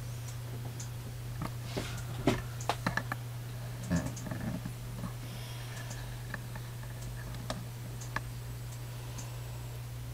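Scattered light clicks and taps of hands handling cloth dolls and small objects on a craft cutting mat, most in the first half, over a steady low hum.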